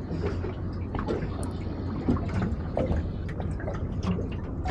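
Water sloshing and dripping around a small boat, with scattered small ticks over a steady low hum.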